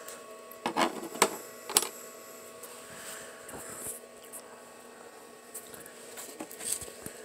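Clicks and knocks of tools and cords being handled, with a few sharp knocks in the first two seconds and lighter clicks later, over a faint steady hum.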